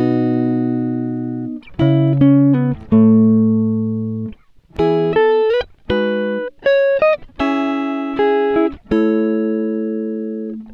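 Background music of plucked guitar notes and chords, each struck sharply and ringing as it fades, in phrases with short breaks between them.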